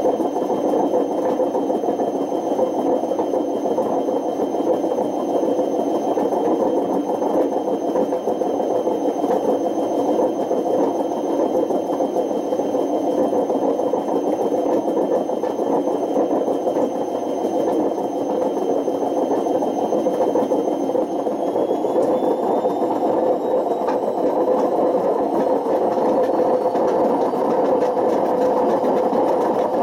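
Panasonic NA-127VB6 washing machine running with worn-out drum bearings, giving a loud, steady roar with a thin high whine that starts rising in pitch about two-thirds of the way through as the drum speeds up.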